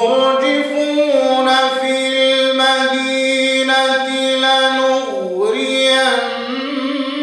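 A man's solo voice reciting the Quran in melodic tajwid style, with no instruments. He holds a long drawn-out note with ornamented turns, and his pitch dips and climbs back about five seconds in.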